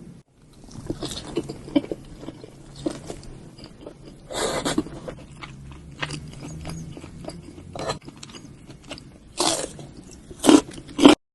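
Food being handled in the kitchen: a run of clicks, crunchy rustles and short scrapes. There are louder scraping bursts about four and a half seconds in and three more near the end, and the sound cuts off abruptly.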